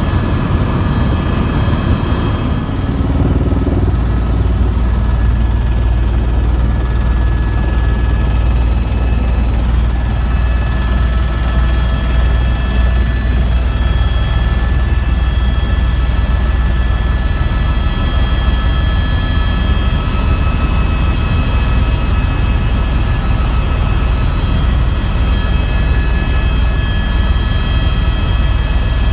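Tour helicopter in steady flight: a loud, constant low rumble of rotor and engine with a steady high whine over it. The low rumble grows heavier about two and a half seconds in.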